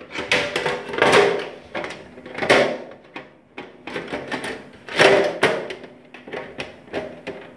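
The sheet-metal side cover of an HP EliteDesk desktop case being slid along the chassis and pushed back and forth: several scraping slides, the loudest about five seconds in, with many small clicks and knocks between them. The cover is not closing easily.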